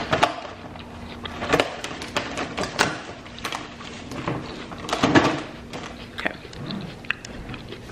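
Irregular clicks and knocks of things being handled close by, over a faint steady hum that stops near the end.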